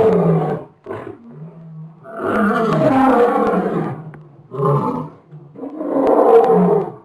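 Elephant roaring in a series of rough calls: a brief one about a second in, a long one of about two seconds, then two more, with a low steady rumble in the gaps.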